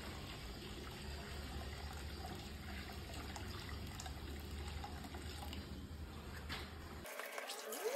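Water poured from a bucket through a funnel into an empty propane tank, a steady trickle and splash as the tank fills, flushing out leftover propane. The pouring breaks off near the end.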